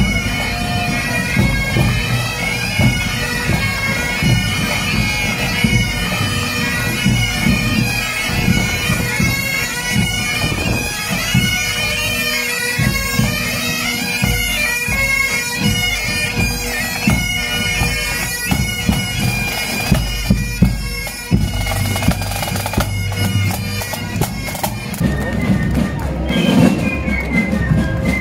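Pipe band marching past: massed bagpipes play a tune over a steady drone, with drums beating beneath. About twenty seconds in, the pipe tune fades, and a low steady hum and drumming carry on.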